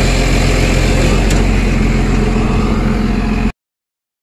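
JCB 432ZX wheel loader's diesel engine running steadily, after a no-start traced to a failed stop solenoid (stop coil) on the fuel injection pump. The sound cuts off suddenly near the end.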